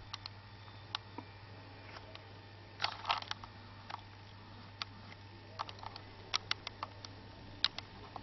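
Scattered light clicks and taps from hands handling a camera held to a rifle scope's eyepiece, with a cluster of them about three seconds in, over a low steady hum.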